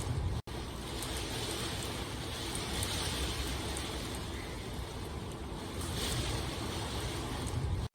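Steady rainfall, a continuous hiss that swells and eases gently, with faint ticks of drops. It cuts out for an instant about half a second in and again at the end.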